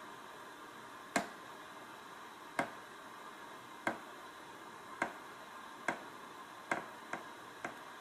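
Samsung Waterwall 9550 dishwasher door creaking with eight sharp ticks that come closer and closer together, as the auto-release starts to push the door open at the end of the cycle. The drying fan runs underneath as a steady faint noise.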